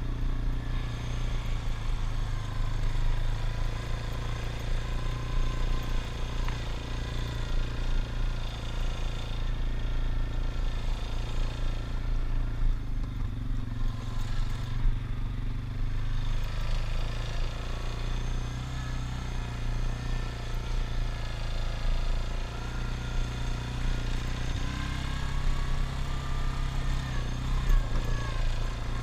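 ATV engine running steadily while riding along a dirt trail, its pitch rising and falling a little with the throttle near the end.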